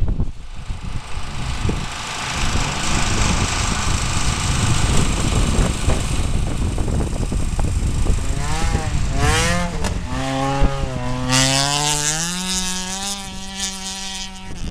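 Race car engine running in a rough rumble, then from about halfway revving: its pitch swings up and down, then climbs in steps toward the end.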